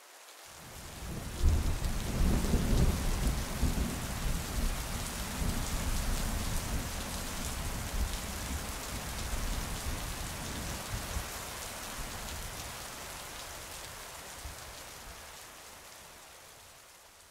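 Steady rain with low rolling thunder rumbles. It swells in over the first second or two, is loudest about two to three seconds in, then slowly fades away.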